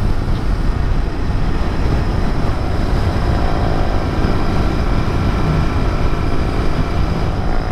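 Royal Enfield Continental GT 650's parallel-twin engine running steadily at cruising speed, heard from the rider's seat with wind rushing over the microphone.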